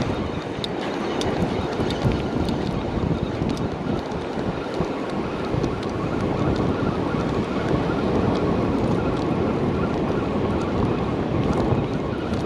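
Wind buffeting the microphone over the steady wash of ocean surf on the beach.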